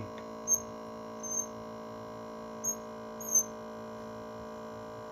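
Steady electrical hum of a phone screen-separator machine running its suction, with four short high-pitched chirps about half a second, a second and a half, two and a half and three and a half seconds in.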